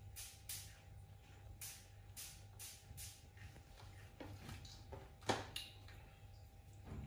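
Crisp rolled wafer cookies being chewed by a baby monkey: a run of short dry crunches, about two a second, with one louder, sharper snap about five seconds in.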